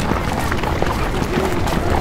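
Busy street ambience: a steady bed of bustle with many small clicks and knocks and brief snatches of voices.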